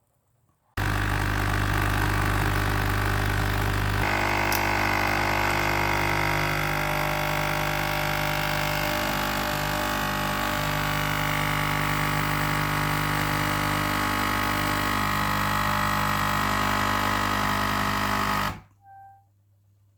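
Nescafé Dolce Gusto capsule coffee machine's pump running during a brew, a loud steady hum that starts suddenly about a second in, changes in tone about four seconds in, and stops abruptly near the end.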